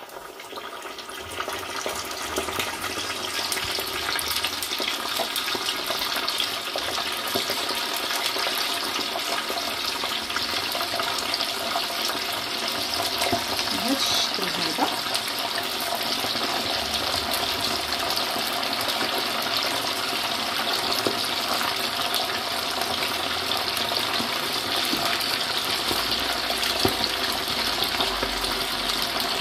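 Chicken drumsticks deep-frying in hot oil at 180 °C in a frying pan for their second frying: a steady, dense sizzle and crackle that builds up about a second in as the pieces go into the oil.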